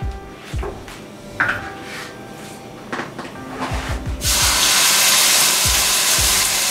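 A venison roast searing in hot olive oil in a pot: a few light knocks at first, then about four seconds in a loud, steady sizzle starts suddenly as the meat goes into the oil.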